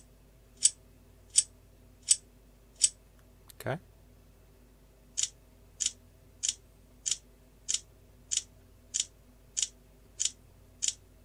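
A cheap SciPhone iPhone 3G clone's loudspeaker playing a MIDI ringtone preview that is only a sharp click repeated about every two-thirds of a second. About three and a half seconds in the clicking breaks off for a short falling tone and a pause, then the clicks start again.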